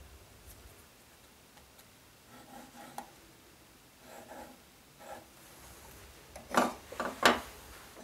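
Pencil scratching along the edge of a steel combination square as lines are drawn on maple, in a few short strokes. Near the end come three sharp knocks as the metal square is set down on the wooden workbench.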